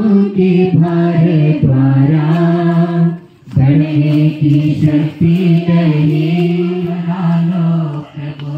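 A group of voices chanting a devotional hymn in unison, with long held notes that step up and down. The singing breaks off briefly about three seconds in, then resumes.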